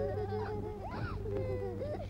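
Many overlapping short, high cries or calls that bend up and down in pitch, over a steady low hum.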